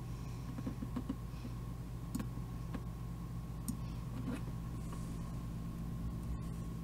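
A few faint, scattered clicks and taps of a computer mouse and keyboard as a number is typed into a field, over a steady low hum.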